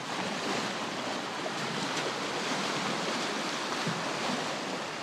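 Fast river rapids rushing past a small boat: a steady, even wash of water noise.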